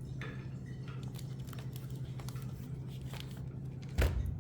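Faint rustling and handling noises over a steady low hum, with a single thump about four seconds in.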